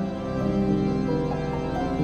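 Organ music playing slow, held chords, with the notes changing every half second or so.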